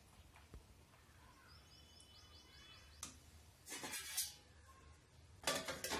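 Quiet kitchen with faint bird chirps about two seconds in, then a steel lid scraping and clattering as it is moved over a steel wok a little before four seconds in, and another brief clatter of utensils near the end.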